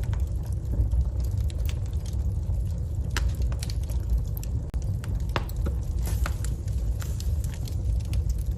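Wood fire burning in a fireplace: a steady low rumble of flames with scattered sharp crackles and pops from the burning logs, a few of them louder.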